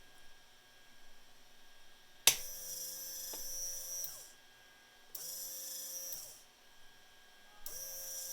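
A small servo motor whirring in short runs after a sharp switch click about two seconds in. It runs for nearly two seconds, stops, then runs twice more for about a second each, with a slight rise in pitch each time it starts. The motor is driving the helmet's face-shield mechanism through a DPST reversing switch and limit switches.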